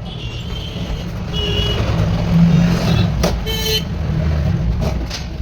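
Steady low engine rumble of motor vehicles, swelling about two seconds in. Short high tones come near the start, and a sharp click about three seconds in is followed by a brief higher tone.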